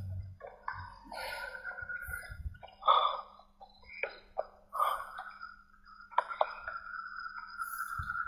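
Irregular rustling, scuffing and handling noise as someone pushes through wet brush, with a steady high-pitched tone that sets in about five seconds in.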